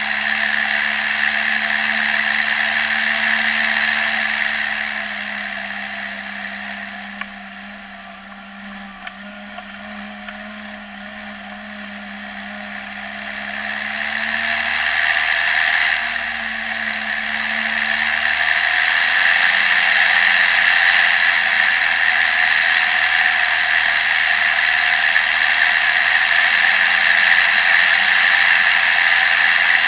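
Case CVX 1195 tractor's diesel engine running as the tractor drives along a road. It eases off and quietens for several seconds partway through, then builds back up and runs steadily to the end.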